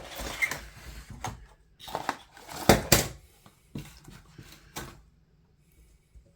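Cardboard and plastic packaging handled by hand: irregular rustling, clicks and knocks. The loudest are two sharp knocks about three seconds in, and it stops about five seconds in.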